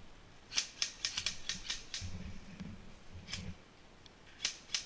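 Airsoft rifles firing, heard as scattered sharp clicks, single shots and short quick runs at an irregular pace.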